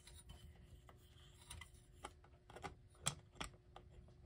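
Faint, scattered clicks and taps of a small clock motor being handled and worked into place in the clock's housing while its gear is lined up with the clock's gears.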